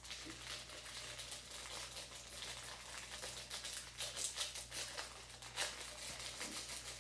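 Small plastic bag crinkling in the hands as tiny resin diamond-painting drills are emptied from it into a glass jar, a dense, uneven crackle of fine clicks.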